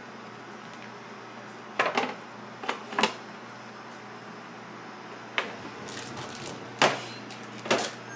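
Kitchen clatter: a handful of short, sharp knocks and clacks, some in quick pairs, over a steady low hum.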